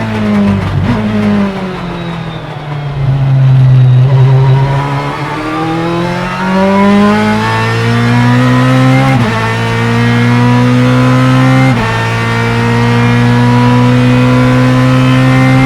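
Ferrari F430 GTC race car's naturally aspirated 4.0-litre V8 at full racing pitch: the revs fall as it slows, with a few crackles, then the engine pulls hard, up through the sequential gearbox, with sharp drops in pitch at two upshifts, about halfway in and again near three-quarters.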